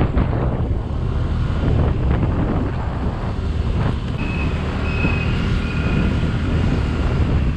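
Wind buffeting a helmet-mounted action camera's microphone over the steady running of a Yamaha Mio Gravis scooter's small single-cylinder engine and road noise, riding at about 40 km/h through town traffic. A few faint short high tones sound past the middle.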